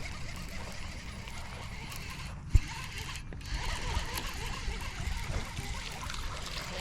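Fishing reel being cranked steadily, its gears clicking, as a hooked bass is reeled in. One sharp knock about two and a half seconds in is the loudest sound.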